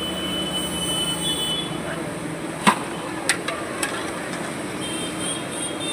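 Busy street background noise with a few sharp knocks, the loudest about two and a half seconds in, followed by three smaller ones.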